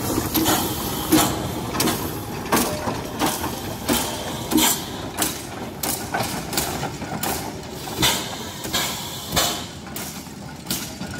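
Trevithick 1802 replica steam locomotive running slowly, its single-cylinder engine giving a steady rhythm of exhaust beats, about three every two seconds.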